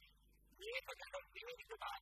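Only speech: a man speaking in short phrases.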